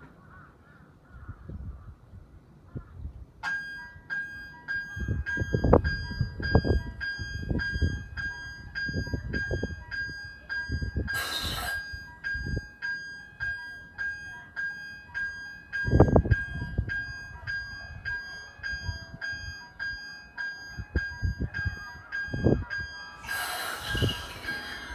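A repeating electronic railway warning tone, the same pitched note pulsing evenly, starts about three and a half seconds in and keeps going. Low wind thumps on the microphone and two short bursts of hiss sound beneath it.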